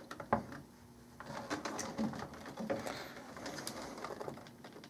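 Light clicks and scrapes of a 12 V sealed lead-acid battery and its wire connectors being handled inside an APC RBC43 machined-aluminium battery cartridge.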